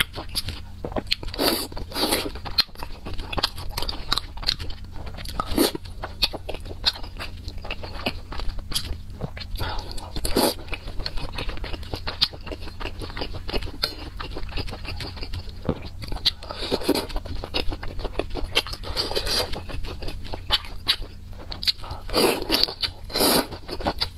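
Close-miked chewing and mouth sounds of someone eating noodle soup: irregular smacks and clicks, with noodles slurped near the end.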